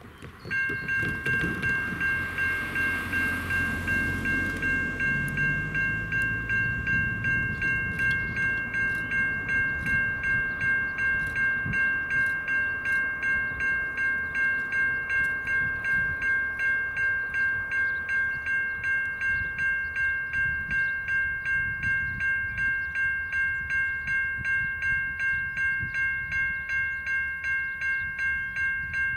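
Safetran Type 3 electronic level-crossing bells start ringing about half a second in and keep up a steady, even ding at about two rings a second. This is the crossing's warning as it activates for an approaching train.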